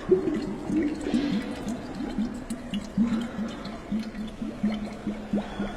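Water gurgling and bubbling inside a pre-Columbian whistling bottle with both its mouths covered: a steady run of quick gurgles that imitates a spring welling up from the ground.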